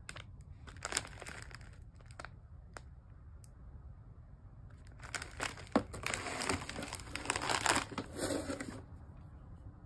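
Plastic snack packaging crinkling as it is handled: an instant ramen packet is turned over and set down among other wrapped snacks. A short crinkle comes about a second in, and a longer, louder stretch of crinkling starts about halfway and stops near the end.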